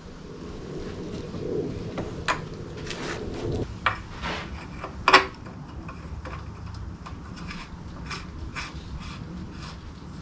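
Hand work on British Seagull outboard parts during reassembly: scattered clicks, taps and scrapes of metal parts and tools, with one sharp click about five seconds in. A low hum runs under the first few seconds.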